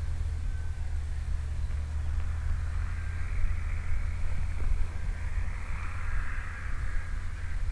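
Steam locomotive No. 18 and its train approaching tender-first: a steady low rumble with a hiss that grows louder about halfway through as it draws nearer.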